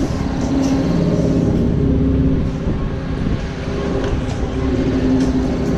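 Hurricane carnival ride in motion, heard from a swinging car: a steady rush of wind on the microphone over a low rumble, with a machinery hum that shifts in pitch now and then.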